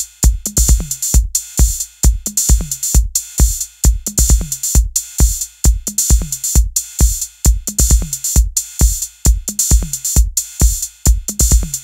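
Music: a steady electronic drum-machine beat with a kick drum on a regular pulse.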